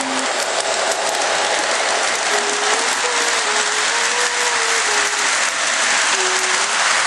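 O gauge model train running along its track close by: a steady, dense rattle of wheels and motor.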